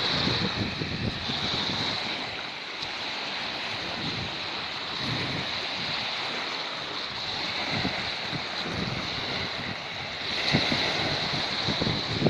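Small sea waves lapping and washing up on a sandy beach, with wind gusting against the phone's microphone, strongest near the end.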